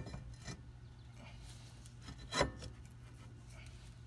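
Subaru Legacy rear brake rotor being slid onto the wheel hub over the parking-brake shoes: metal scraping and light knocks. One louder scrape and clunk a little over two seconds in.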